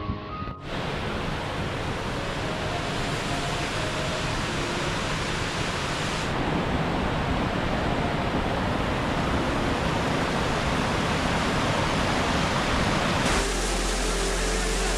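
Waterfall: a steady, loud rush of falling water, changing abruptly between shots about half a second in and about six seconds in. Near the end background music comes in over the water.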